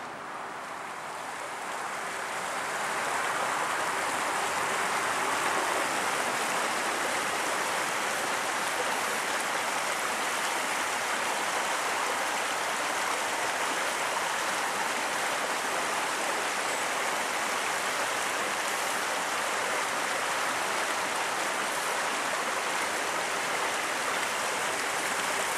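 Small river's water rushing over a low ford crossing, a steady rushing noise that grows louder over the first few seconds and then holds.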